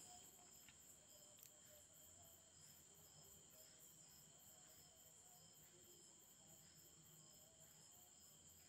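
Near silence: faint room tone with a soft, high chirping that pulses evenly about three times a second.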